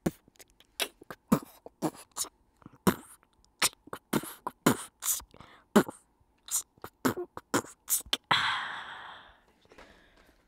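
A person beatboxing: a fast, uneven run of sharp vocal kick, click and snare sounds, ending about eight seconds in with a longer breathy hiss that fades away.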